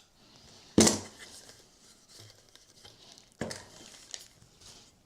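Two sharp knocks of hard parts being handled, one about a second in and a smaller one about three and a half seconds in, with faint rustling between them.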